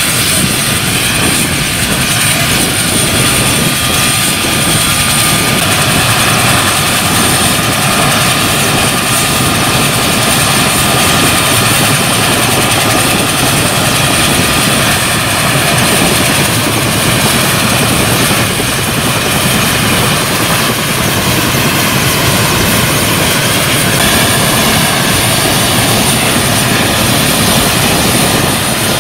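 Mil Mi-17 helicopter running on the ground, its twin turboshaft engines and main rotor turning. The noise is loud and steady, with a high whine over it.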